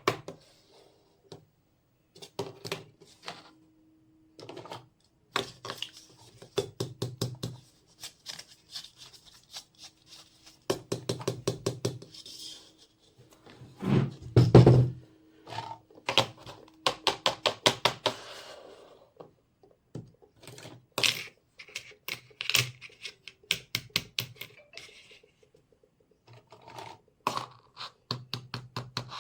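Small plastic miniature toy kitchen pieces being handled, set down and clicked together: scattered knocks and taps, fast runs of clicking, and a few heavier thuds, the loudest about halfway through.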